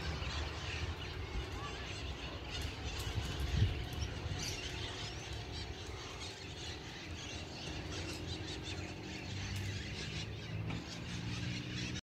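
Outdoor ambience of small birds chirping in short, scattered calls over a low, steady rumble, with one brief thump about three and a half seconds in.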